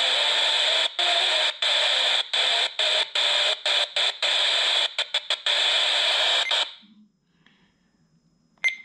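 Icom IC-R6 handheld scanner receiver hissing with static from its speaker as it steps through empty frequencies, the hiss breaking off briefly at each step, more and more often, then cutting off about seven seconds in. It finds no station: reception is poor indoors. A short beep comes near the end.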